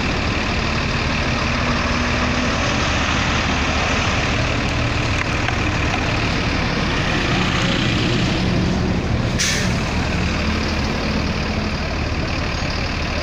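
Coach buses running and passing in steady road traffic, a low engine rumble throughout, with one short sharp hiss of air brakes about two-thirds of the way through.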